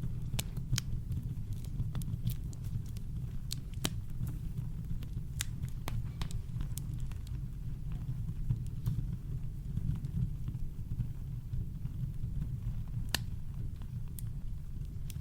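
Campfire crackling: irregular sharp pops and snaps over a steady, deep brown-noise rumble.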